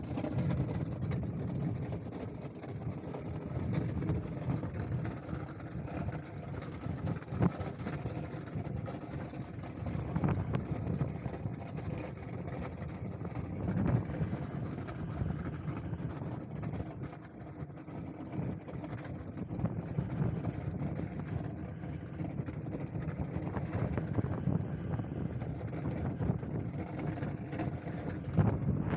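Ice skate blades gliding over rough lake ice: a steady low rumble and hiss, with a few sharp ticks and wind on the microphone.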